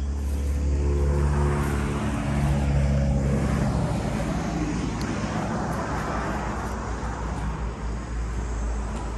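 A motor engine running steadily nearby: a low, even hum over a rumble, its pitched lines clearest in the first few seconds.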